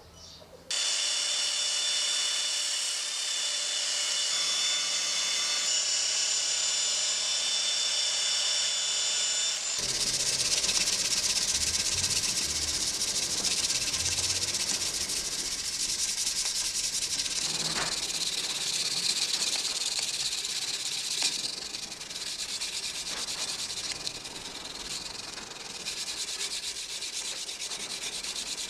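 Steel cleaver blade, cut from an old saw blade, being hand-sanded with an abrasive block: a continuous gritty rubbing of long strokes along the steel. The sound's character shifts about ten seconds in.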